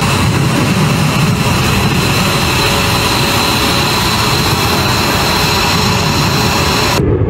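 Twin Pratt & Whitney F119 turbofans of an F-22 Raptor running at full power for takeoff and climb-out, a loud steady roar with a low rumble and steady high-pitched whining over it. The high whine cuts off suddenly near the end, leaving the low rumble.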